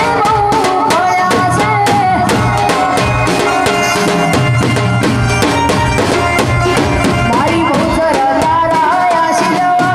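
Loud Gujarati garba folk music with fast, steady drumming under a wavering melody line.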